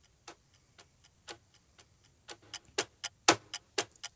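Clock-ticking sound effect marking a quiz countdown timer: faint ticks about twice a second, then from about halfway through louder ticks about four a second.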